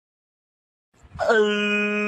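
Silence, then about a second in a person's long wailing cry starts, briefly falling in pitch and then held at one steady pitch.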